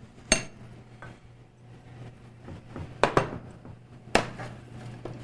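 Kitchenware clinking against a ceramic baking dish as zucchini slices are laid in: three sharp, separate clinks spread over a few seconds, over a low steady hum.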